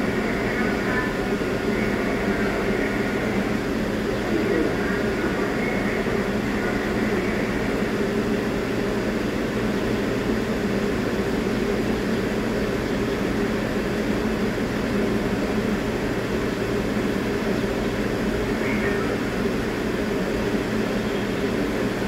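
A stationary R62A subway train idling at the platform, its onboard equipment giving a steady, unchanging hum and whir.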